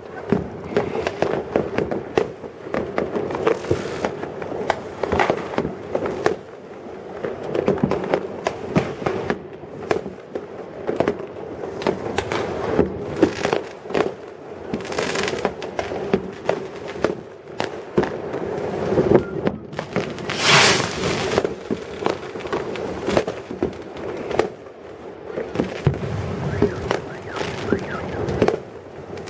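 Fireworks and firecrackers going off in many places, a dense, irregular run of bangs, pops and crackles. About twenty seconds in comes a louder hissing burst.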